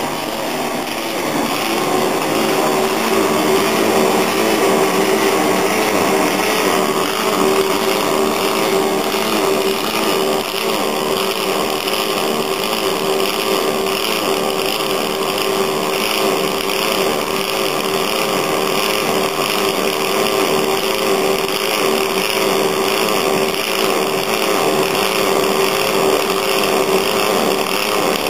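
Oerlikon Citopuls pulsed MIG welder arc welding aluminium: a loud, steady buzz with a constant tone, held throughout the weld.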